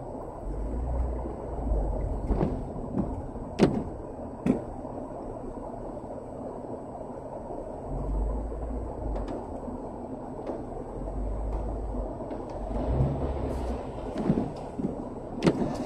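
Inside a car's cabin creeping in stop-and-go traffic: a low engine rumble that swells and fades, with a few sharp knocks.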